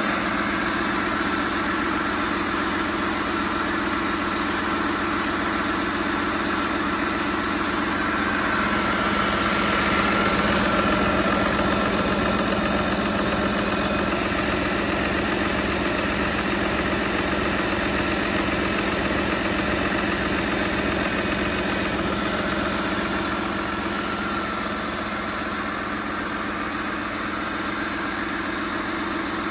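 2009 Mercedes OM 926 LA 7.2-litre inline-six turbodiesel engine idling steadily, with an even low pulsing.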